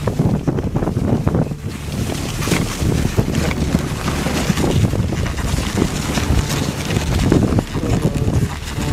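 Wind rumbling on the microphone of a camera riding a moving dog sled, over the rushing noise of the sled travelling across snow.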